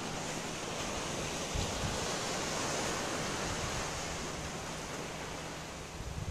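Steady wash of sea surf on a beach, with a low rumble of wind on the microphone.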